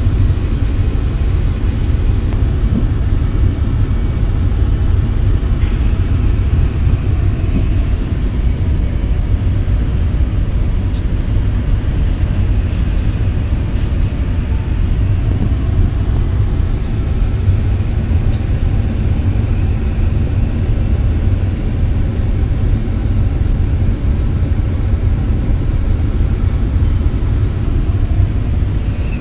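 SANY excavator's diesel engine running steadily at idle, heard from inside the cab. A faint high whine comes and goes a few times over it.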